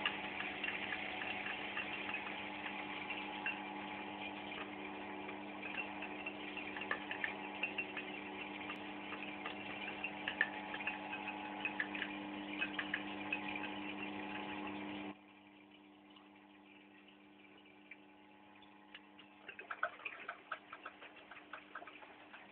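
A steady hum with irregular light ticks and rustles from a cat nosing around inside a front-loading washing machine's drum. The hum cuts off abruptly about fifteen seconds in, and the ticking picks up again a few seconds later.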